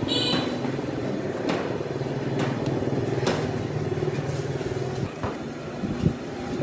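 A motor vehicle engine running steadily in street traffic, with a few sharp clicks.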